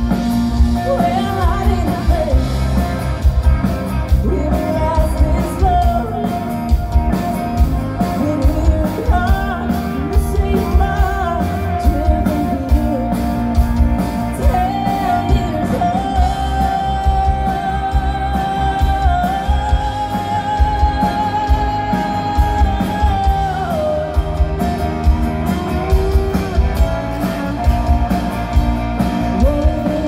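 Live band playing a country-rock song at full volume, with drums, acoustic and electric guitars and a woman's lead vocal holding long notes with vibrato in the middle stretch, heard from within the audience.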